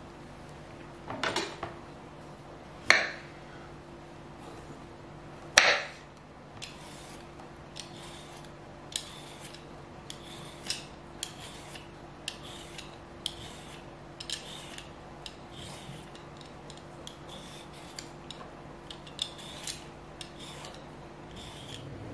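Vegetable peeler scraping strips of skin off a zucchini in short, crisp strokes, about two a second. Three sharp knocks on the wooden cutting board come first, in the opening few seconds.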